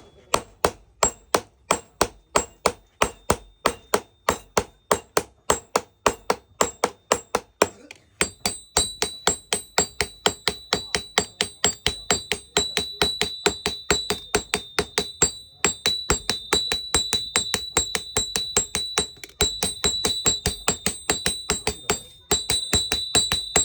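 A blacksmith's hammer striking metal on an anvil in a steady forging rhythm, about three blows a second, quickening to about five a second some eight seconds in, with a high ringing tone carrying between the blows. The hammering stops briefly a few times.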